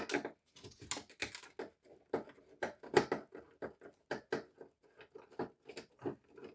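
Irregular small clicks and taps, several a second, of a screwdriver and hands working on a 1971 Mustang's plastic instrument cluster housing as parts are worked loose.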